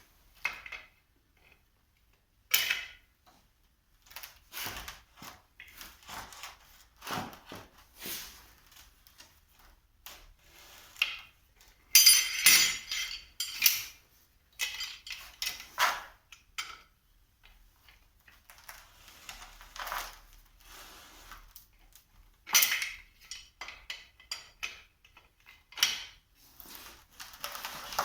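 Metal tools and steel parts clinking, knocking and clattering as they are handled, in irregular bursts with the loudest clatter about twelve seconds in, typical of work on a hydraulic cylinder's rod and seals.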